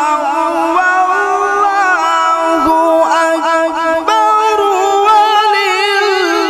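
A man's melodic Quran recitation (qirat) amplified through a microphone. He sings long held notes with ornamented, wavering turns of pitch, without a break.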